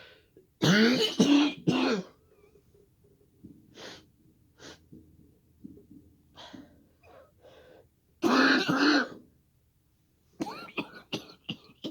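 A woman coughing hard in fits, choking on firework smoke: a fit of three harsh coughs about a second in, fainter coughs and throat clearing, another loud fit about eight seconds in, and a cluster of coughs near the end.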